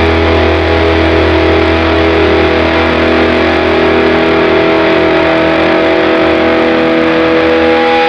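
Loud rock music: a long, held distorted electric guitar chord over a heavy low drone.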